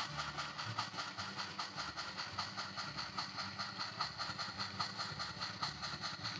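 Sound-equipped HOn3 model steam locomotive chuffing in a steady, quick rhythm as it pulls its train.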